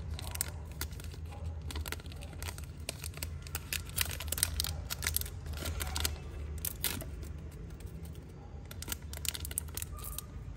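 Irregular small clicks and rustles of a Zippo lighter being handled and turned over, over a steady low hum.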